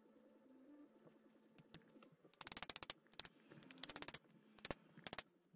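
Bursts of rapid, light clicking and rattling from small metal spacers and the tool being worked onto the shaft end of a VW Mk1 blower motor, starting about two seconds in.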